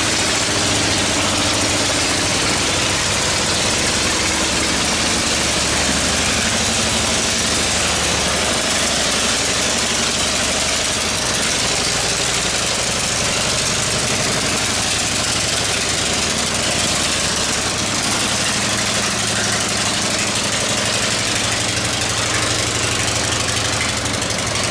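Long-tail boat engine, the engine on a pivot at the stern driving a long propeller shaft, running steadily and loudly close by as the loaded boat moves under way.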